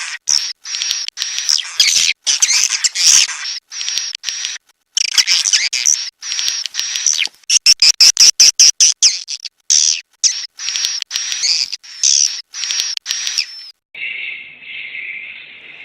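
Swiftlets twittering: rapid clicks and high chirps in phrases broken by short pauses, the kind of call played as a swiftlet-house lure sound. Near the end it gives way to a quieter, steadier chirring at a lower pitch.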